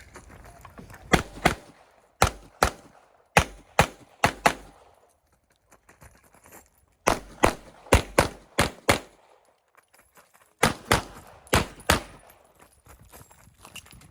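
A 9mm Glock pistol (G26 frame with G47 slide) fired rapidly in pairs of shots, about a third of a second apart. Four pairs come first, then a pause of about two seconds, three more pairs, another pause, and two more pairs near the end.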